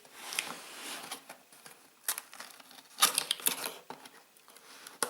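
Cardboard box being cut open and handled: short scraping and rustling sounds of cardboard and packing tape, with a louder cluster of scrapes about three seconds in.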